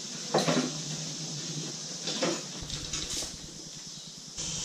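Hand truck and trash can being handled on a concrete floor: a few separate metallic clanks and knocks.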